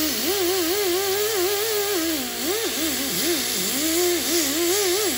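90-degree die grinder spinning a Roloc abrasive disc against the cylinder block deck, grinding off old head gasket material. Its whine wavers up and down continuously over a steady hiss.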